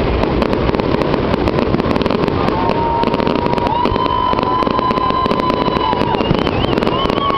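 Fireworks display: a dense, continuous crackling and popping of shells and comets, with a high steady whistling tone coming in about two and a half seconds in.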